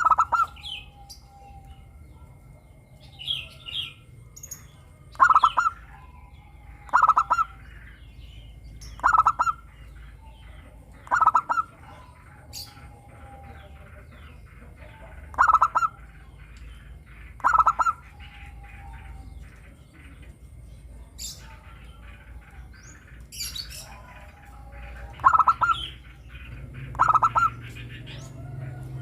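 Zebra dove (perkutut) singing: about nine short, rapid staccato cooing phrases, mostly about two seconds apart with a longer pause midway. Other small birds chirp faintly and higher-pitched in between.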